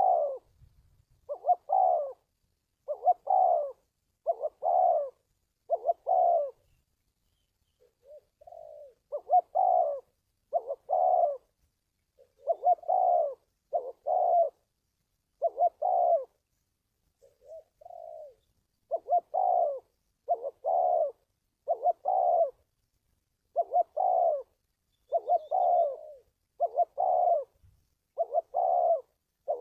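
Spotted dove cooing: a steady run of short, low coos, roughly one a second, with a couple of brief lulls where the coos come softer.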